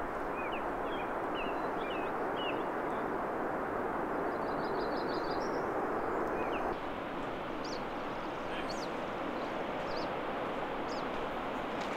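Small birds chirping over a steady rushing hiss of outdoor ambience. There are a few short chirps in the first couple of seconds, a quick trill around the middle, and sharp high chirps in the second half. The background steps slightly quieter just past halfway.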